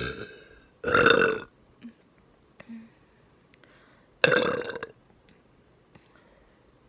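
A woman belching loudly, right up against the microphone: the tail of one burp at the start, then two long burps about a second in and a little after four seconds in, each lasting about half a second, with a few faint small sounds between them.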